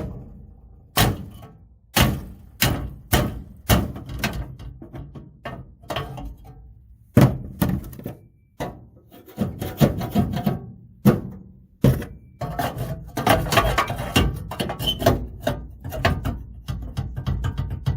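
Hammer blows on car body metal: separate heavy knocks, each with a short ring. They start about a second apart and crowd together into a quicker run of strikes from around two-thirds of the way through.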